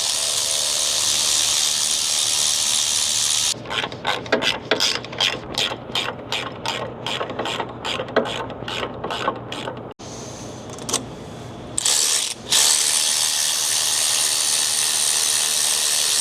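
Ratchet wrench tightening T-bolt hose clamps: a run of sharp ratchet clicks, about three a second, from a few seconds in. Before and after the clicks there are stretches of steady rushing noise.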